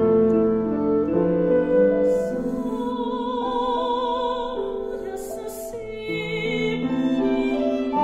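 Live contemporary chamber music: violins, woodwinds and piano holding slow, overlapping notes, some with vibrato, with singers' voices joining in and two short hissy sibilant sounds about two and five seconds in.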